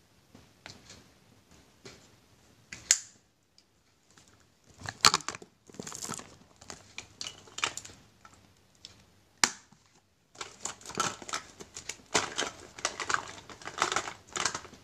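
Clear plastic cosmetics pouch and small makeup items being handled: the plastic crinkles, with scattered clicks and taps. The rustling gets busier and more continuous about ten seconds in.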